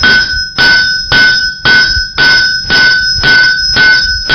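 Blacksmith's hand hammer striking hot iron on an anvil at a steady pace, just under two blows a second, about nine in all. The anvil rings on after each blow. The blows are flattening and spreading the end of the bar into a spoon bowl.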